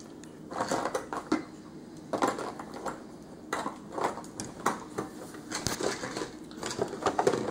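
Heavy black fabric rustling and bunching as it is handled and pushed into place at a sewing machine, in irregular bursts, with small sharp clicks and knocks against the machine.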